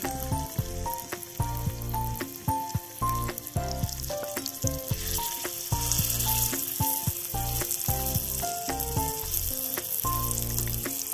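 Paneer tikka skewers sizzling in hot oil on a small tawa while a metal spatula presses and turns them. The sizzle grows louder around the middle.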